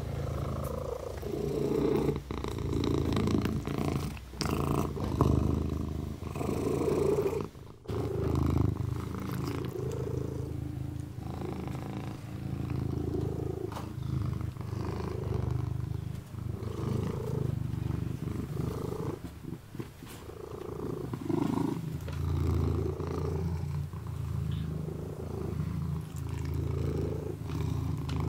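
Ginger kitten purring, its level rising and falling every couple of seconds, with faint licking clicks as it washes its paw.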